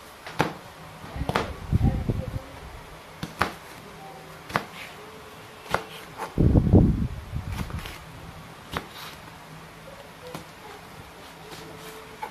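Kitchen knife slicing fresh red chillies on a plastic cutting board: sharp taps of the blade hitting the board, about one a second. Two heavier low thumps stand out, one about two seconds in and a louder one about seven seconds in.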